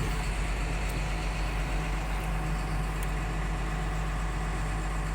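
Heavy diesel engine running steadily, a low, even hum with no revving.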